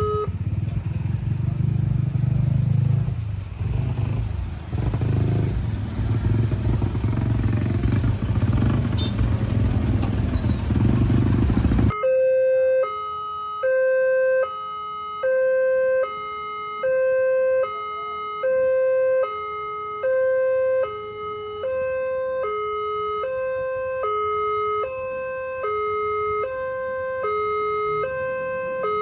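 Railway level-crossing warning alarm sounding a two-tone hi-lo signal, switching between a higher and a lower tone about every 0.8 s, the warning that a train is due. For the first twelve seconds a loud low rumble drowns it out, then the rumble stops abruptly and the alternating tones are left clear.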